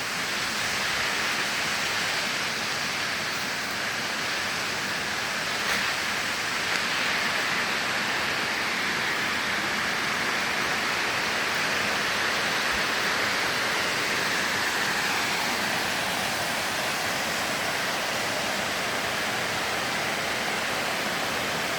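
Waterfall: a steady rush of water falling and splashing.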